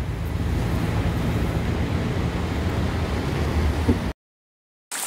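Car driving through floodwater, heard from inside the cabin: a steady engine and road noise with water washing around the car. It cuts off suddenly about four seconds in, and after a short gap rain on a surface begins.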